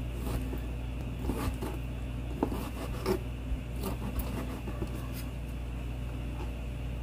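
Kitchen knife slicing raw abalone on a plastic cutting board: soft, irregular taps and scrapes as the blade goes through the flesh and meets the board, over a low steady hum.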